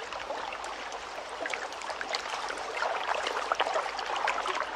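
Recorded lakeside water sound: water lapping and trickling at the shore, an even patter of many small splashes.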